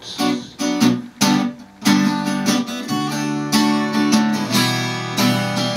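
Acoustic guitar strummed in chords, with a short gap about a second and a half in before the strumming picks up again.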